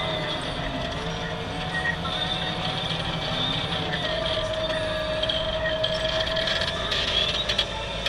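Deutz-Fahr 7250 tractor running steadily under load while ploughing, with a wavering whine over the engine's drone.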